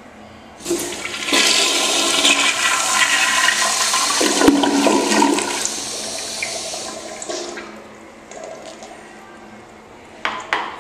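1980s Eljer Sanus toilet flushing on a flushometer valve: a sudden rush of water about a second in that swirls down the bowl and tapers off over the next several seconds. A couple of sharp clicks come near the end.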